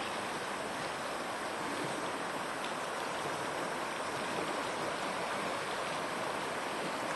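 The River Spey's current flowing over its stony bed: a steady, even rush of moving water.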